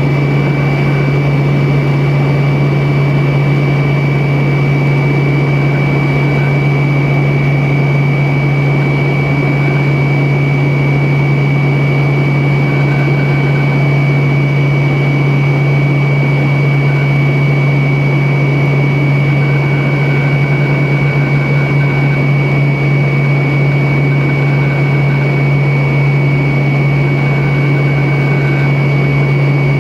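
Steady in-flight cabin drone of a Tupolev Tu-134B-3 airliner: its rear-mounted Soloviev D-30 turbofans give a deep, even hum with a thin, high whine held above a rush of air noise.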